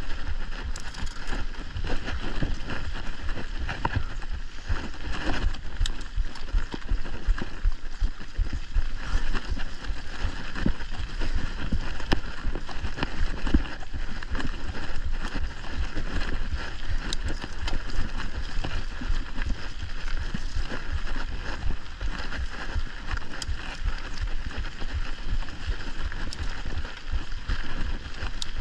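Mountain bike riding over a dirt singletrack: steady tyre noise on dirt and dry leaf litter with frequent small rattles and knocks from the bike over bumps, under a low wind rumble.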